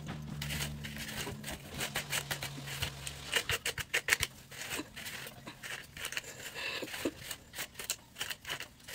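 A plastic detangling hairbrush pulled through long damp hair: repeated, irregular scratchy brushing strokes. A low steady hum is also there and stops about three seconds in.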